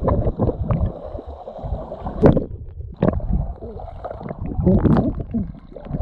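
Underwater sound through an action camera's waterproof housing: muffled sloshing and gurgling of sea water stirred by a swimmer's arm strokes, with irregular knocks and bumps, the loudest about two seconds in.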